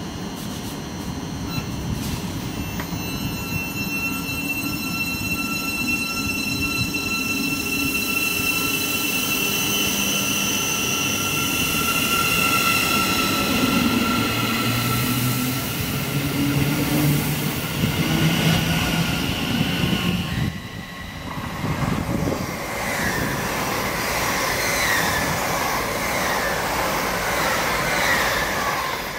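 Great Northern electric multiple unit pulling away, its traction motors whining in steps that climb in pitch as it gathers speed. About two-thirds of the way through this gives way to the rushing wheel and rail noise of an LNER express passing at speed, with light squeals from the wheels.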